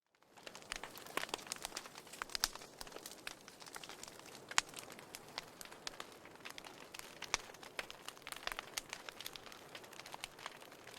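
Wood fire crackling in a fireplace: irregular sharp pops and snaps over a soft hiss. The sound cuts out for a split second at the very start, then fades back in.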